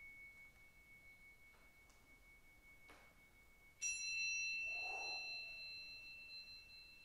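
A struck metal chime ringing: one high tone dies away, then a brighter chime is struck about four seconds in and rings on with several high tones, slowly fading.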